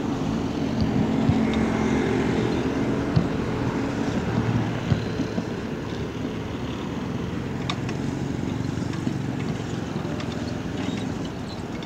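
Wind rushing over a phone's microphone on a moving bicycle, with road noise and small rattling clicks. A motor vehicle's engine hum is heard over it in the first half, fading later.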